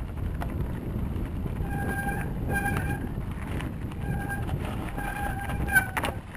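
Bicycle rolling over a rocky trail: a low rumble of tyres and wind on the action-camera microphone. The brakes squeal in several short steady bursts from about two seconds in, and there is a sharp clack near the end.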